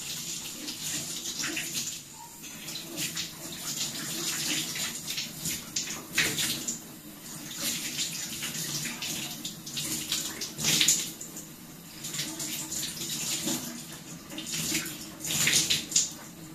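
Bathtub tap running while water is splashed onto the face by hand to rinse off a facial peel, with louder splashes now and then, the biggest about six seconds in, near eleven seconds and just before the end.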